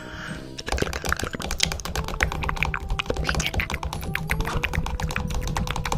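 A rapid, irregular run of clicks and taps, like typing on a keyboard.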